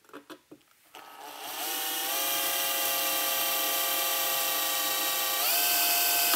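Electric drill boring a hole in a metal amplifier chassis: a few light clicks, then the motor whine comes up about a second in and climbs to speed, runs steady, and rises in pitch again near the end.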